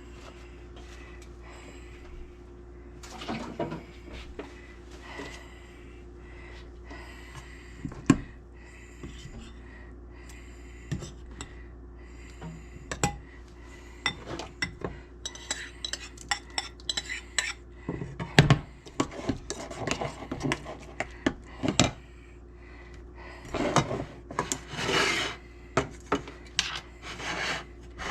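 Kitchen dishes and utensils handled: scattered clinks and sharp knocks, then a stretch of scraping and rubbing near the end, over a faint steady hum.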